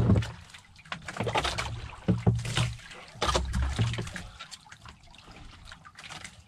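People eating: scattered light clicks and scrapes of spoons and fingers against plastic bowls, with a few brief low murmurs.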